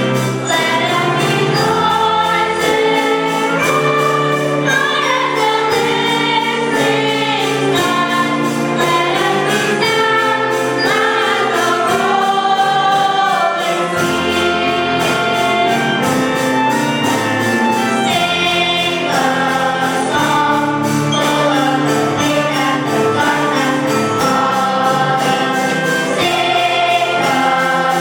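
Gospel-style choir singing with instrumental accompaniment and a steady beat.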